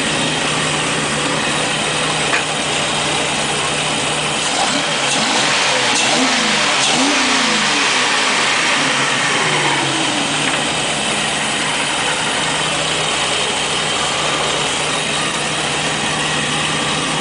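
Volvo Penta marine engine running steadily at idle, revved up and back down a few seconds in, then settling back to a steady idle.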